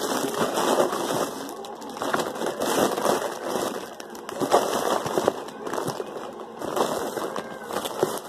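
Clear plastic packaging crinkling and a cardboard box rustling as they are handled, an irregular run of small crackles that rises and falls.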